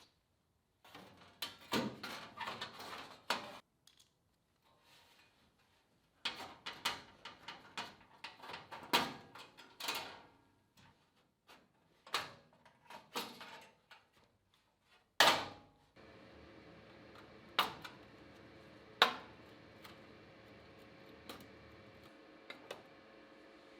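Irregular knocks, clicks and clatter of metal parts being handled and fitted, in short clusters with pauses. About two-thirds of the way through, a low steady hum starts under a few single sharp knocks.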